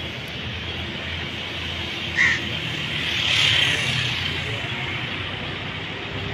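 Steady outdoor background noise, with a short sharp cry about two seconds in and a longer, louder cry about a second later.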